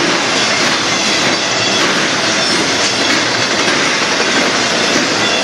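Freight cars of an intermodal train, flatcars loaded with highway trailers, rolling past: a loud, steady rush of steel wheels on rail, with faint high wheel squeals now and then.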